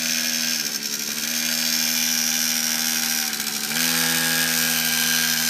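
Small single-cylinder engine of a children's mini dirt bike running at steady revs, dipping briefly about a second in and again about three and a half seconds in as the throttle eases, then picking back up.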